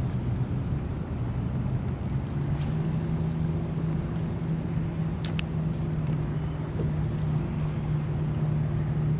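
A boat engine running steadily, its hum rising a little in pitch about two and a half seconds in, over wind and water noise. A single sharp click about five seconds in.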